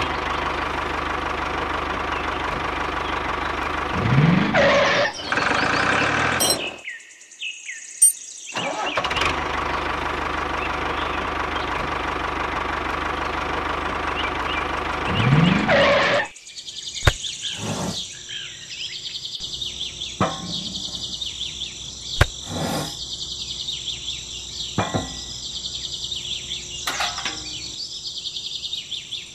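Tractor engine running steadily, revving up briefly about four seconds in, dropping out for a couple of seconds, then running again and revving once more before it stops about sixteen seconds in. After that, birds chirping with scattered sharp clicks and taps.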